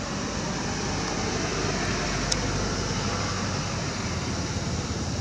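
Steady low rumble of road traffic, with one sharp click a little over two seconds in.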